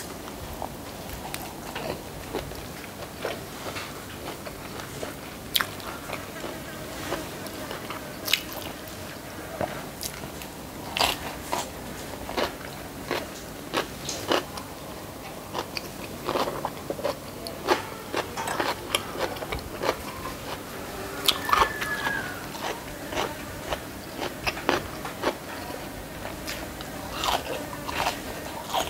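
Close-miked eating: a person chewing handfuls of rice with crisp fried fish and chili paste, with irregular sharp crunches and wet mouth clicks scattered throughout.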